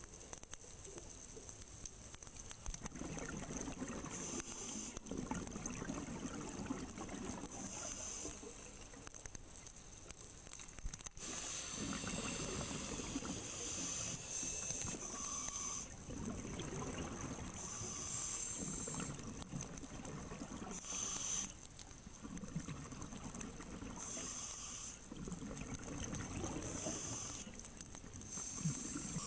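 Scuba diver breathing through a regulator underwater: short, high hissing inhalations alternating with longer bubbling exhalations, one breath about every three to four seconds.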